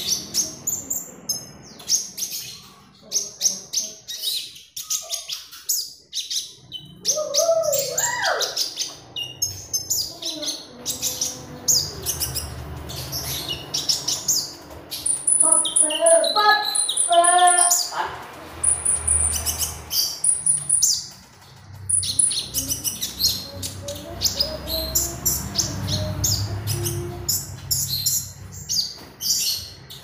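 Caged kolibri ninja sunbird singing vigorously: a fast, continuous stream of high, sharp chirps and twitters.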